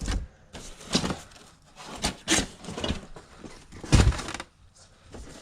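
Stored items being rummaged through and moved about: irregular rustling, scraping and knocks. The loudest is a sharp knock about four seconds in.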